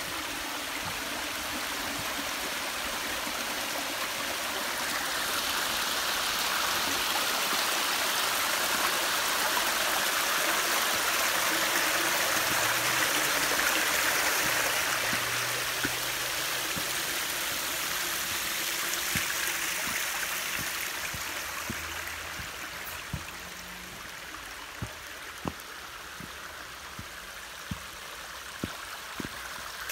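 Small creek running and splashing over thin, layered rock ledges in little cascades. The rush swells louder through the middle and softens after about two-thirds of the way in. A few sharp clicks come near the end.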